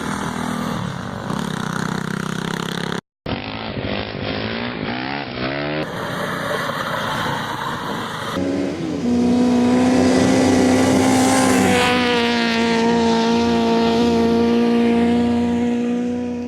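Engine running and revving in several short, abruptly cut clips, the pitch wavering in the first part, then held at a steady high engine speed from about halfway in.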